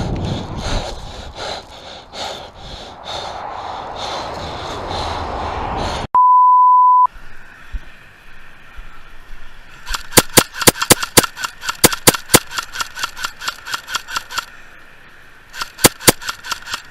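Airsoft guns firing rapid strings of shots, about six cracks a second, in two volleys in the second half. Before them comes a loud one-second steady beep, and at the start there is rustling and movement noise with scattered clicks.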